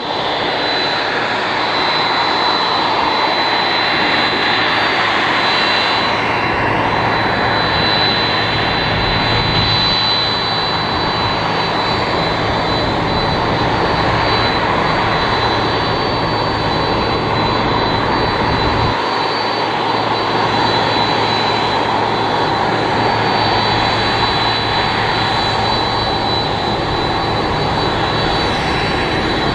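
Boeing 767-300F freighter's twin jet engines running at taxi power as the aircraft rolls slowly past: a steady, loud jet rumble with a steady high turbine whine on top.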